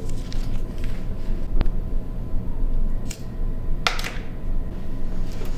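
Steady low room rumble with a single sharp click about a second and a half in and a short swish, like cloth or movement, near four seconds.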